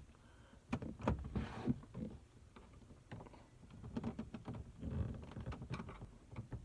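Faint handling noises from working a small screwdriver at a car dashboard's headlight switch: scattered light clicks and taps, with a couple of soft rustling stretches.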